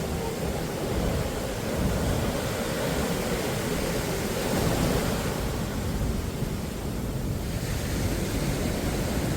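Sea surf washing onto the beach at high tide, with wind rumbling on the microphone.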